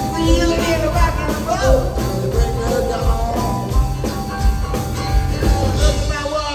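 Rock and roll band playing, with a steady drum beat and pitched lead lines bending up and down over it.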